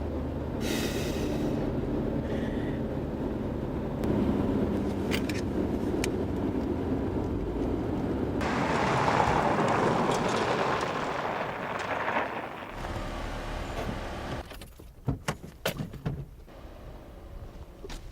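Car engine and road noise, louder in the middle, with a few sharp clicks near the end.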